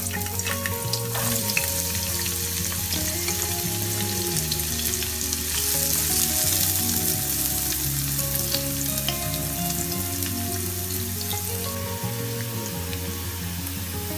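Chopped onion sizzling and crackling as it fries in hot olive oil in a nonstick frying pan, the sizzle growing louder about five seconds in.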